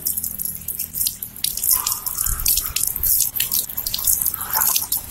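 Water from an outdoor tap running over a hand and a bunch of goosegrass being rinsed of soil, splashing and dripping onto the wet ground in a quick run of small splats.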